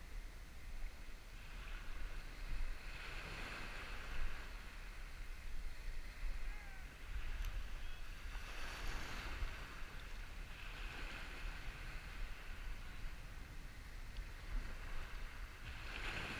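Small surf waves washing in and receding at the water's edge, several swells of hiss rising and fading, over a steady low rumble of wind on the microphone.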